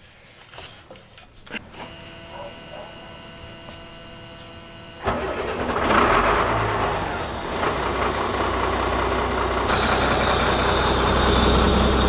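School bus's Caterpillar 3116 inline-six diesel engine starting about five seconds in, then running steadily at idle.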